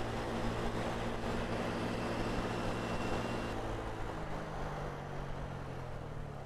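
Mondial Cup moped engine running under way, with wind rushing over the helmet microphone; the engine note drops about three and a half seconds in as the rider eases off.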